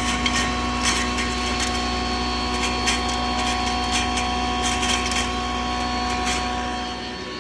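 10 HP double-chamber turmeric grinding machine running with a steady hum, with short irregular clicks and rattles over it. The low part of the hum drops away near the end.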